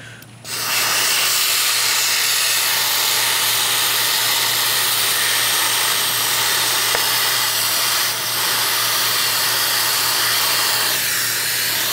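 Can of compressed-air duster spraying in one long continuous hiss, starting about half a second in, with a brief dip about two-thirds through. The spray is being used to freeze a bike lock so it can be broken.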